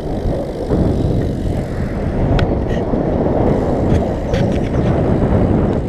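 Wind rushing over an action camera's microphone on a moving road bike: a loud, ragged rumble, with a few faint clicks about halfway through.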